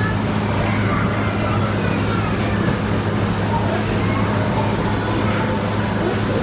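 Earthquake simulator running: a loud, steady rumble with a constant low hum, broken by repeated short rattles as the platform jolts.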